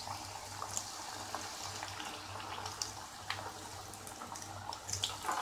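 Mawa-stuffed chandrakala pastries deep-frying in hot oil in a kadhai: a steady sizzle with scattered small crackles and pops, swelling louder near the end as more pastries go into the oil.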